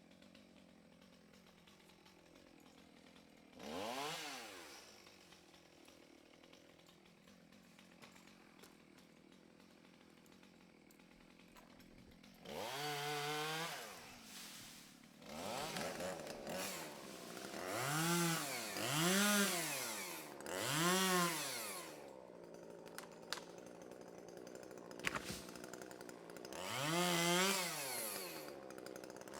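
Chainsaw idling and revved up in short bursts, each rev rising and falling in pitch within about a second. There are about seven revs: one early, one near the middle, a quick cluster of three or four soon after, and one more near the end.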